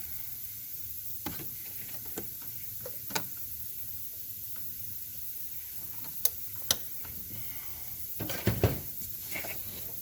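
Scattered sharp clicks and snaps of plastic zip ties being cut off an ignition coil connector and wire harness, with a short burst of clattering handling noise near the end, over a steady hiss.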